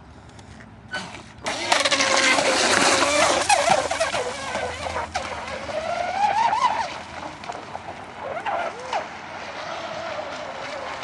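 Brushless electric motor of an RC catamaran speedboat whining as it takes off hard about a second and a half in, with the hull hissing over the water. The whine rises and falls in pitch several times with the throttle and grows fainter as the boat runs away.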